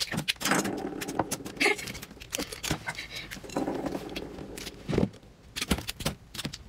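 Live shrimp flicking and jumping on a plate after being doused with dipping sauce, making a fast, irregular run of sharp clicks and taps.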